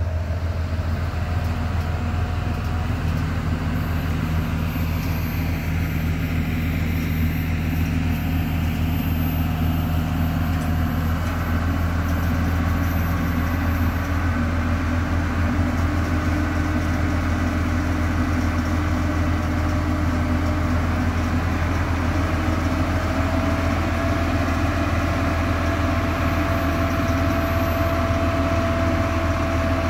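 Heavy vehicle engine running steadily with a deep hum, with fainter higher tones coming and going over it.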